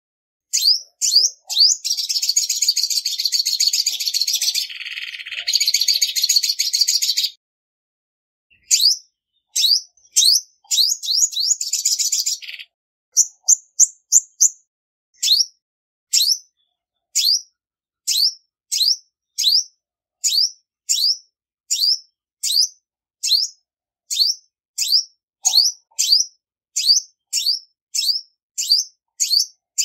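Female olive-backed sunbird calling with sharp, high, downward-sliding chirps. In the first half it breaks into two long, rapid, buzzy trills. Near the middle it settles into a steady run of single chirps a little under a second apart.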